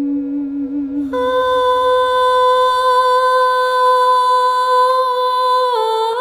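Meditation music: a woman's voice holding long, steady sung notes. A low note gives way to a higher one about a second in, which is held, dips briefly in pitch near the end and then returns.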